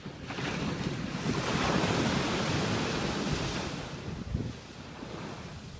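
A surf wave breaking and washing in: a wide rush of noise that swells over the first second or so, holds, then fades away near the end.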